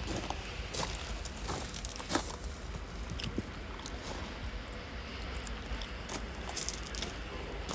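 Footsteps crunching on rough ground: irregular short crunches over a steady low rumble.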